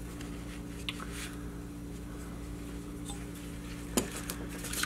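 A carving knife taking small chips out of a basswood figure: faint short scrapes, with a light click about four seconds in, over a steady low hum.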